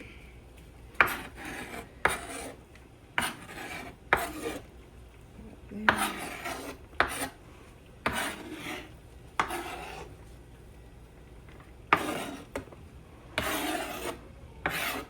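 Kitchen utensil scraping chopped chicken together, about ten strokes at uneven intervals: each starts with a sharp knock and drags into a short rasping scrape.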